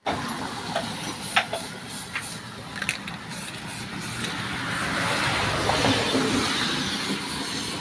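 Road traffic: a passing vehicle's noise swells about four seconds in and eases off near the end, with a few light clicks earlier.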